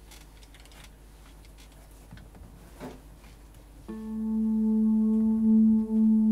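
Faint handling clicks on a nylon-string guitar, then about four seconds in a single low note swells up from silence and sustains steadily without decaying, the sound of an amplified nylon guitar played in an ambient style.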